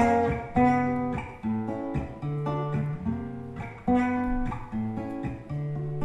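Solo acoustic guitar playing an instrumental interlude between verses of a song: plucked chords over held bass notes, with a fresh attack about every half second to a second.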